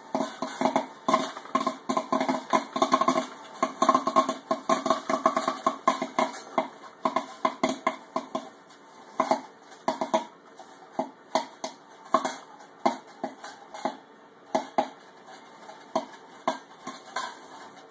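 Countertop kettle popcorn maker popping corn: rapid, dense popping over a steady hum at first, thinning to scattered single pops a second or more apart, as the batch nears the end of popping.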